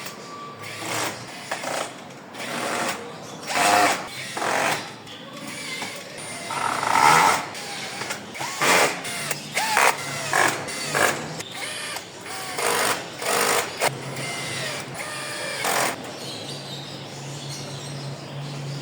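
Power tool run in short, irregular bursts during woodworking, with a low steady hum in the later part.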